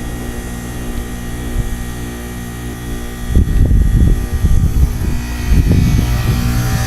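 Goodman heat pump outdoor unit humming steadily as it runs a defrost cycle on its frozen, iced-up coil. About three seconds in, loud irregular low buffeting rises over the hum.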